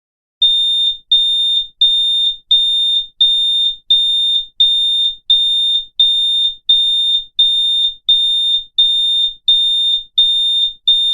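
Electronic beeper sounding a steady, high-pitched beep over and over: about sixteen identical beeps, each just over half a second long, with short even gaps between them.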